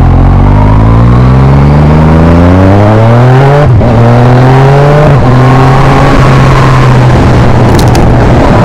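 Yamaha MT-09's three-cylinder engine through an Akrapovic exhaust accelerating hard. The revs climb, then there are two quick quickshifter upshifts, about three and a half seconds in and again a second and a half later, after which it pulls on with a steadier, slowly rising note.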